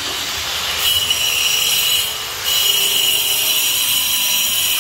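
A power tool cutting with a steady high whine. It starts about a second in, stops briefly around two seconds, then runs again.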